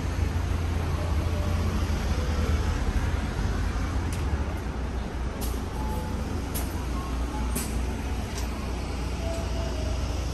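Street traffic with the low, steady rumble of a city bus engine running close by, and a few faint ticks in the second half.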